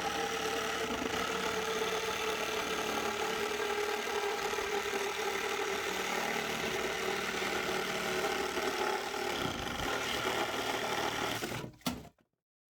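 Reciprocating saw running steadily, a held motor whine over a rattling, gritty cutting noise; it cuts off abruptly near the end.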